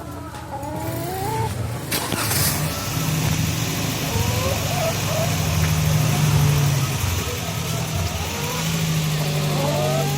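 A vehicle engine starts up about two seconds in and keeps running steadily, while chickens carried in cages on the vehicle cluck now and then.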